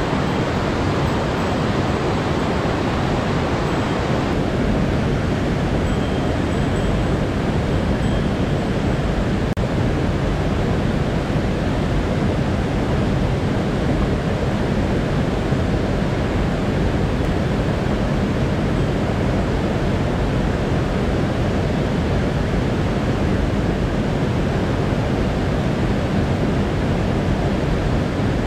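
Mountain stream rushing over boulders and small cascades: a loud, steady wash of water, its tone shifting slightly about four seconds in.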